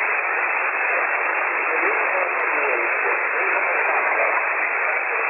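Shortwave receiver hiss and static from an HF transceiver tuned to the 40-metre band in lower sideband. It snaps on the moment the radio switches back from transmit to receive, and it is cut off at about 3 kHz by the receive filter. A very faint voice shows only weakly through the noise.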